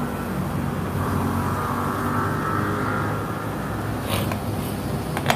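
Steady low background hum with several held low tones, and a brief faint click about four seconds in.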